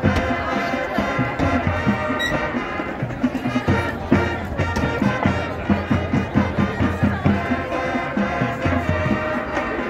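High school marching band playing: brass, saxophones and flutes, with drums beating underneath.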